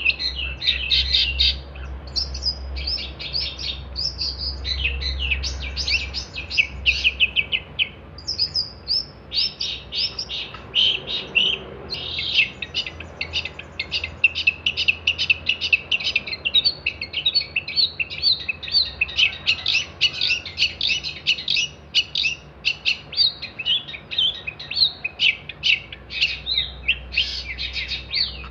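Long-tailed shrike singing an energetic, rapid, near-continuous song of sharp chattering and trilling notes, with only brief pauses.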